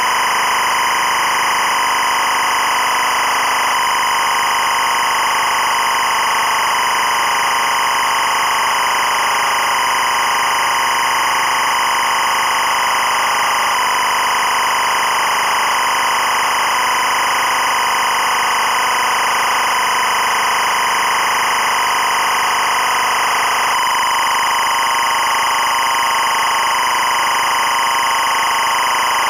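EBU linear timecode (LTC) audio signal at 25 frames per second: a continuous, steady electronic data tone with no breaks. It encodes the running hours:minutes:seconds:frames count, here passing from about 1 hour 3 minutes 36 seconds to 1 hour 4 minutes 4 seconds.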